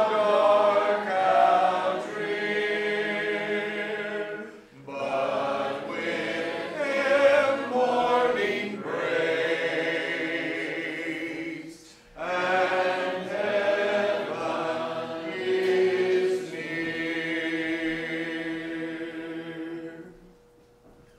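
Congregation singing a hymn a cappella, unaccompanied voices in long held phrases with two short breaks for breath. The last note dies away just before the end.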